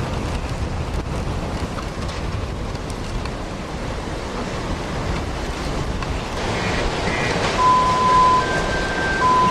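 Hurricane wind rushing and buffeting against the microphone as a steady, loud noise. In the last few seconds, a series of steady electronic beeps at two alternating pitches sounds over the wind.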